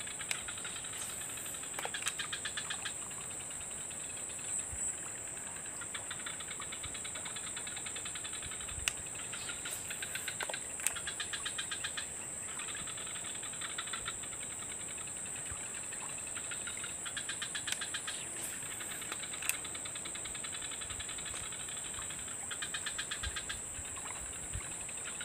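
Steady high-pitched insect drone. Every few seconds, short bursts of rapid, even ticking cut in, along with a few single sharp clicks.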